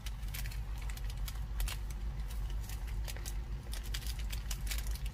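Stir-fried yakisoba noodles and vegetables crackling in a hot pot, with many short, irregular ticks over a steady low hum.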